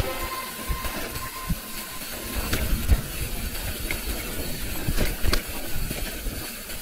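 Mountain bike riding along a trail: a steady rushing noise with scattered knocks and rattles from the bike.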